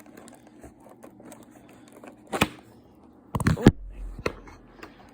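Handling noises of a cardboard advent calendar box as its door is pried at: scattered clicks and rustles, a sharp crack a little over two seconds in, and a louder cluster of knocks and a thud about three and a half seconds in. The door is stuck.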